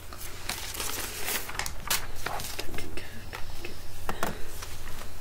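Paper card being handled: a run of soft, irregular rustles and crinkles, over a low steady hum.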